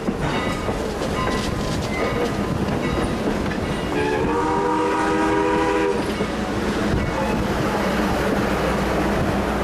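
Canadian National 89, a 2-6-0 Mogul steam locomotive, running past with its train, wheels clattering over the rail joints. About four seconds in, its chime whistle sounds one blast of about two seconds, a chord of several notes.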